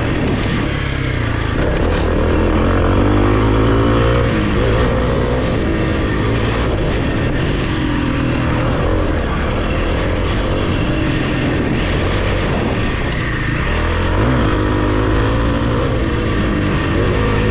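Kawasaki KLX300's single-cylinder four-stroke engine pulling as the dirt bike is ridden, its pitch rising and falling with the throttle: it revs up about two seconds in and again later on.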